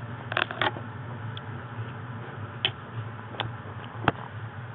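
A kitten's paws and claws ticking and tapping on a tile floor and against the camera as it walks right up to it: about five sharp, separate clicks, two close together early on and the sharpest near the end, over a steady low hum.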